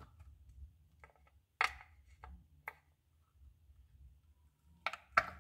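A few light, sharp clicks and taps as a dark chocolate piece is set down on a textured metal serving plate: the loudest about a second and a half in, two lighter ones soon after, and a quick cluster near the end.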